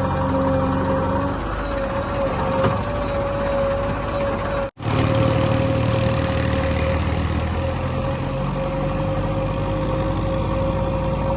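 JCB 3DX backhoe loader's diesel engine running steadily with a constant high whine over it. The sound cuts out for an instant about halfway through.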